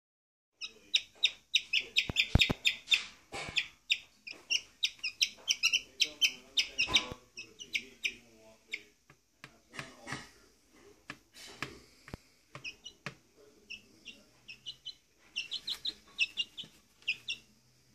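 A young chicken chick peeping excitedly in rapid runs of short, high-pitched peeps as it finds worms. The peeping is dense for the first half, thins out, then comes back in a burst near the end, with a few short knocks among it.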